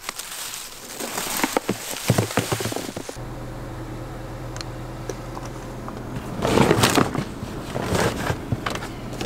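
Footsteps crunching through dry fallen leaves with plastic goose decoys rustling. About three seconds in, the sound changes to a steady low hum inside a vehicle, with bursts of rustling and knocking from decoys and their lines being handled, loudest in the middle.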